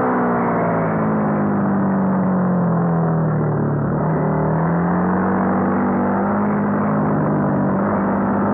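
Honda CBR250R's single-cylinder engine from onboard: revs fall smoothly for about four seconds as the rider eases off through a bend, then climb again under throttle on the way out.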